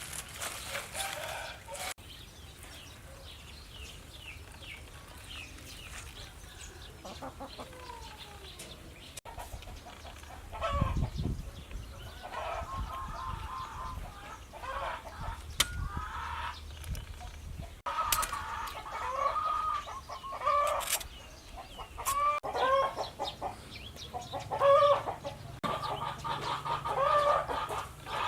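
Chickens clucking, the calls sparse at first and then coming thick and fast through the second half.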